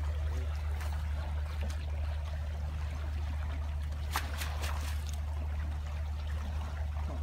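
Water swishing and trickling as a long-poled scoop net is dragged through shallow muddy water, with a couple of sharper splashes about four seconds in. A steady low hum runs underneath.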